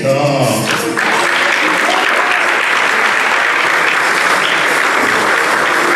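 A snatch of music breaks off about a second in, then an audience applauds steadily.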